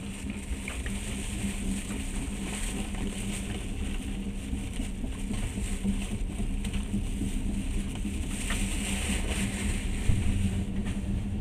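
Passenger train running, heard from inside the carriage: a steady low rumble with a constant hum and a few faint, irregular clicks.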